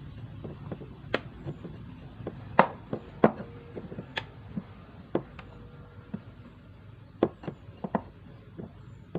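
Kitchen utensils knocking and clinking, a scattered run of sharp taps at uneven intervals, loudest twice around three seconds in.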